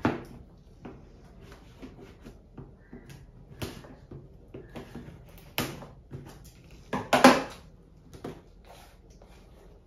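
Scissors snipping packing tape on a cardboard box, with scattered clicks, scrapes and knocks as the box is handled. The loudest bumps come about seven seconds in, as the box is lifted and tipped.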